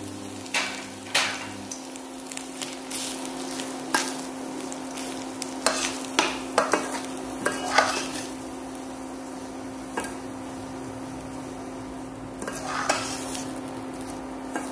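Steel slotted spatula scraping and clacking against a stainless steel pan while stirring semolina into a spice tempering, with a light sizzle, over a steady low hum.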